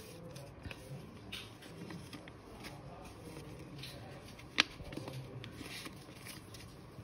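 Folded sheet of white paper rustling and crinkling as hands work its folds open, with faint scattered crackles and one sharp click about four and a half seconds in.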